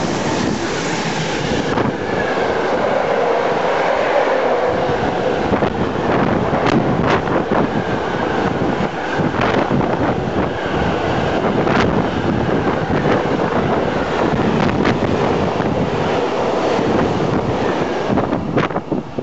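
Train running on the rails: a loud, steady rolling noise, with sharp wheel clicks on the track now and then.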